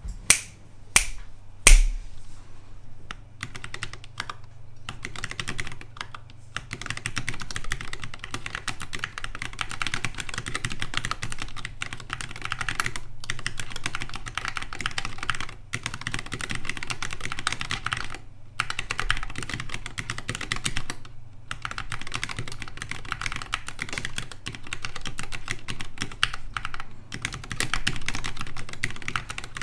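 Typing on a Preonic Rev 3 ortholinear mechanical keyboard with lubed Zealios v2 62g tactile switches and Acute keycaps. Three loud separate clicks come in the first two seconds, then fast continuous typing with a few short pauses.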